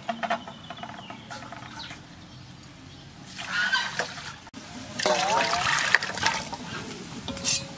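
Water poured from a metal bowl into a metal pot of sea snails, splashing over the shells in two pours, the second, about five seconds in, the louder.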